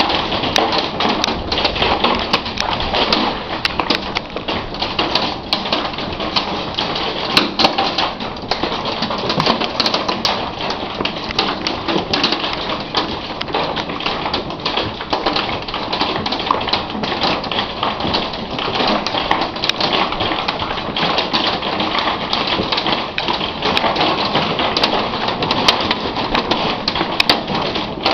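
Hail pelting down in a storm: a loud, continuous, dense clatter of hailstones striking, with sharper individual hits standing out throughout.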